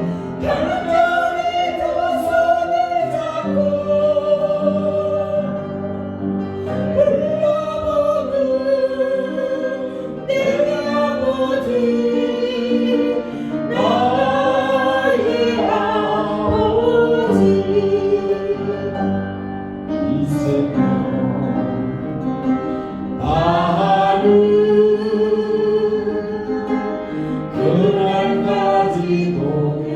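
Group of voices singing a slow Korean worship song with instrumental accompaniment, in long held phrases that run on without a break.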